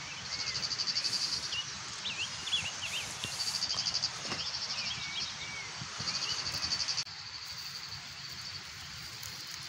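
Field insects trilling in bursts of rapid, even pulses, three bursts a few seconds apart, with faint high chirps between them. The trilling stops about two-thirds of the way in, leaving a faint steady outdoor background.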